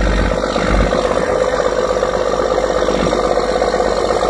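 A fishing boat's Cummins N14 inline-six diesel engine running steadily with the boat under way, with an even, rapid pulse.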